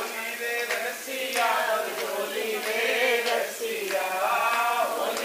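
A group of people chanting together, several voices in unison, in phrases of about a second each.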